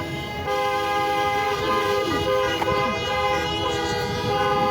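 Many vehicle horns honking at once, a long overlapping chorus of held tones that grows louder about half a second in.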